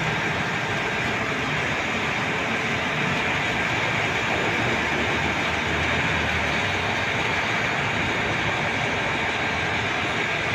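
Rain falling steadily on the river, a constant even hiss that does not let up.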